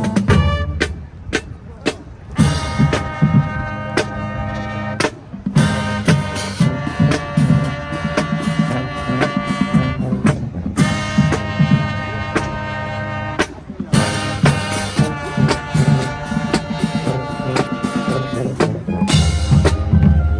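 High school marching band playing: the brass section holds loud chords over a deep tuba line while the drumline beats steadily beneath. The music comes in short phrases, breaking off briefly between them.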